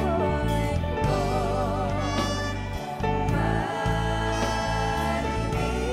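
Gospel song: a woman singing held notes with vibrato over a band backing of bass and drums.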